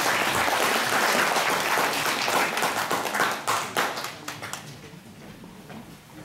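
Audience applause, dense at first, then thinning to scattered separate claps and dying away about four to five seconds in.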